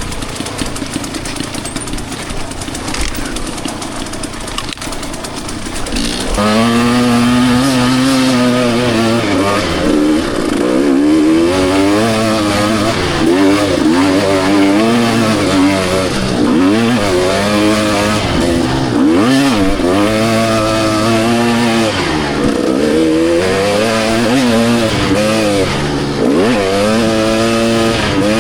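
Two-stroke dirt bike engine running on a trail, fairly quiet for the first few seconds, then about six seconds in it opens up and revs hard, its pitch rising and falling again and again as the throttle is worked.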